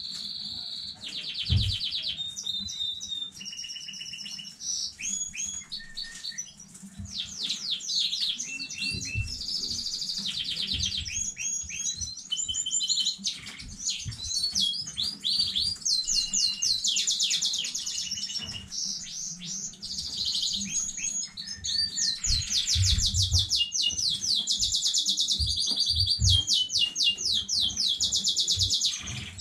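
Domestic canary singing a long, continuous song of rapid trills and quickly repeated high chirping notes, changing phrase every second or two with only brief pauses.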